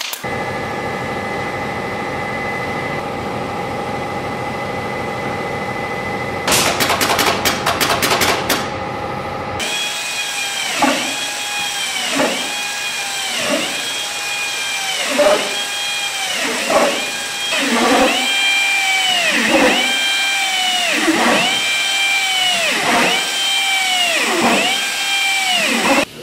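A pneumatic upholstery staple gun fires a rapid run of staples over a steady hum. Then an electric drill bores holes in a foam cushion, its motor spinning up, holding and winding down about once a second, over and over.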